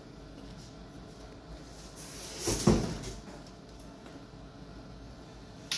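Handling noise as a phone and its USB charging cable are readied: a brief rustle and knock about two and a half seconds in, and a sharp click near the end. Under it runs a faint steady hum from the Bluetti AC180 power station while it charges.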